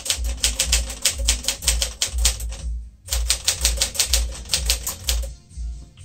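Typing on a 1959 Smith-Corona Sterling manual portable typewriter: rapid strings of type-bar strikes. There are two runs of keystrokes with a brief pause about halfway, and the typing stops shortly before the end.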